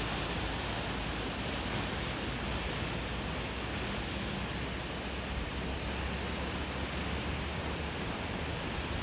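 Steady, even rushing noise: the Mac Mac Falls twin waterfall, mixed with wind rumbling on the microphone.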